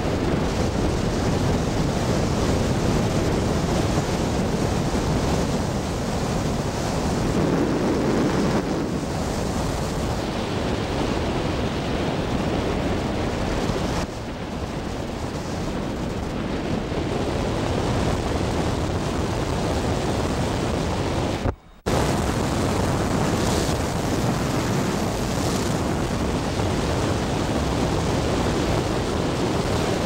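Steady rushing road and wind noise of a car driving along a mountain road, with wind on the microphone. The sound cuts out abruptly for a split second about two-thirds of the way through.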